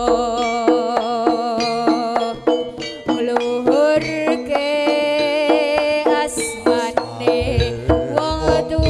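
Live jaranan ensemble music: a steady run of kendang drum strokes under a pitched melody, with a long, wavering held line partway through.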